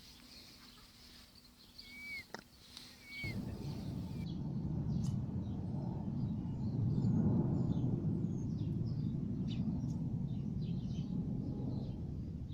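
Two short bird chirps over quiet outdoor background, then, after an abrupt change, a steady low rushing noise with many faint, quick high chirps or ticks over it.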